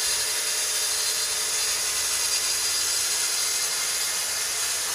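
Track saw on a guide rail running steadily as its blade cuts along a composite decking board.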